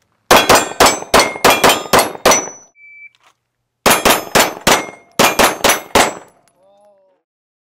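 Two rapid strings of pistol shots at steel plate targets, each shot followed by the ring of the struck steel. About three seconds in, a shot timer gives its short start beep, and the second string begins less than a second later.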